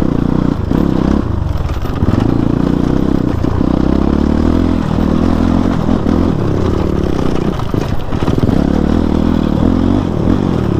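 Motorcycle engine running under load on a rough dirt trail, its pitch rising and falling with the throttle and briefly dropping several times, with clattering from the bike over the bumps.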